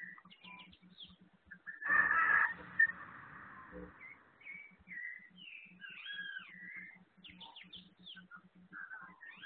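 Birds chirping and calling with short rising and falling whistled notes, and a much louder, harsher burst of sound about two seconds in that lasts about half a second.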